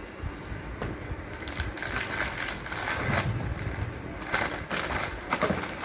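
Thin plastic mailer bag rustling and crinkling as it is handled and pulled open, in two main bursts.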